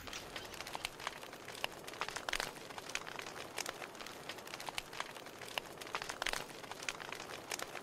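Faint, irregular crackling: many small clicks scattered throughout.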